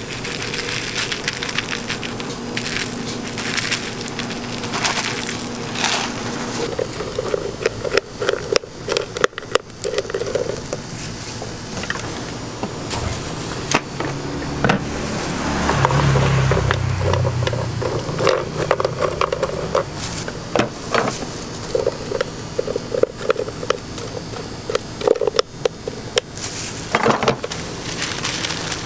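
Clicking and crackling of small hard candy pieces and wafers being poured out of plastic containers onto cotton candy, with a low rumble about halfway through.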